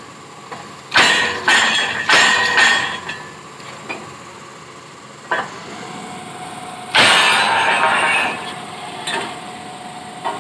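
Heavy metal-on-metal strikes on a borewell drilling rig's steel pipework: about six irregular clanks, some ringing on after the blow, the longest and loudest about seven seconds in. The rig's engine runs steadily underneath.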